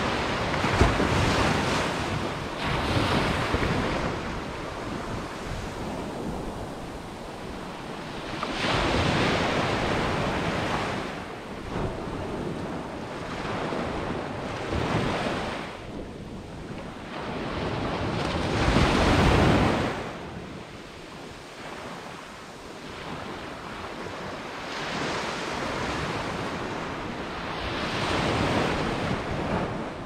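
Surf breaking on a sandy beach: waves wash in and draw back in slow, rushing swells every several seconds. The biggest break, about two-thirds of the way through, carries a deep rumble.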